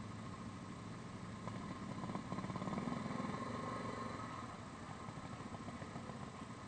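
Yamaha Grizzly 550 ATV's single-cylinder engine running at low speed, with a steady pulse. The engine sound swells about two seconds in and eases back a couple of seconds later.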